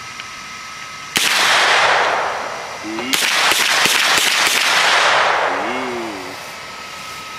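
Gunfire: one sharp report about a second in, then a quick string of shots about three seconds in, each trailing off into a hissing wash that fades over a couple of seconds.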